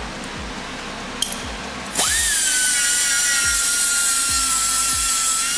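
A short click, then about two seconds in a handheld power cutting tool spins up: its whine jumps, overshoots and settles at a steady high pitch with a loud hiss as it cuts away the car's sheet-metal radiator support.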